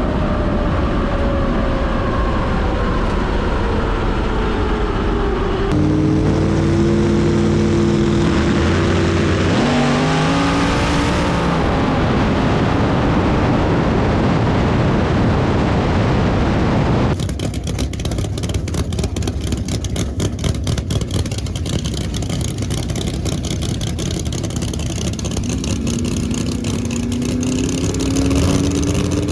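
Drag race car engines: engine pitch falling and then rising, a loud full-throttle stretch, then from about 17 seconds a choppy, rapidly ticking engine sound, with the engine revving up again near the end.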